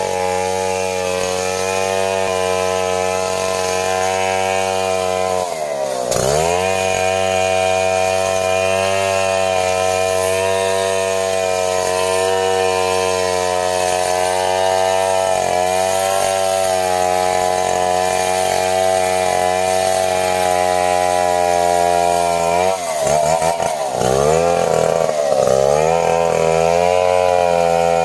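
Stihl two-stroke chainsaw running at full throttle while ripping a log lengthwise into planks, a steady high-pitched drone. Its pitch dips sharply and recovers about six seconds in, and again several times near the end.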